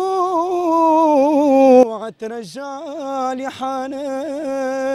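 A young man singing a lament unaccompanied in Tunisian chaabi style, holding long wavering notes. He breaks off briefly about two seconds in, then goes on with ornamented notes.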